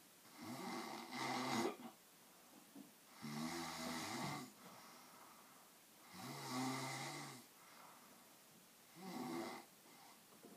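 Snoring: four rattling snores, each about a second long, coming roughly every three seconds, the last one shorter.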